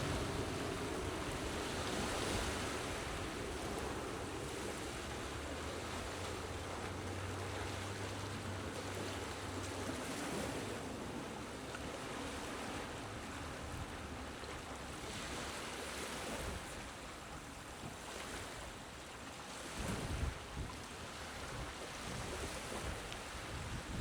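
Small, gentle sea waves washing onto the shore, the surf swelling and easing every few seconds.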